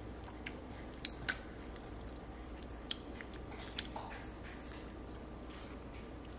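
Soft lip smacks and small mouth clicks of someone tasting food off a finger, a scattering of sharp ticks in the first four seconds, over a low steady room hum.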